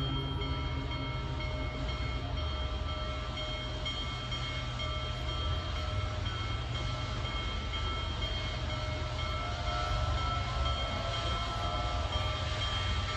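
Union Pacific Big Boy 4014, a 4-8-8-4 articulated steam locomotive, approaching: a steady low rumble from its exhaust and running gear, growing slightly louder near the end.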